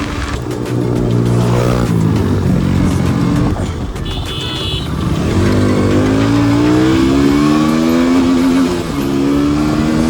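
Motorcycle engine pulling through the gears while riding, its pitch rising and then dropping back at each shift several times.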